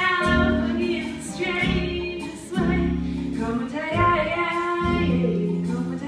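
A singer performing a song over instrumental accompaniment, with long held notes.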